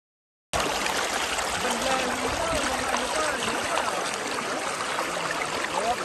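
Stream water flowing, a steady rushing that starts suddenly about half a second in.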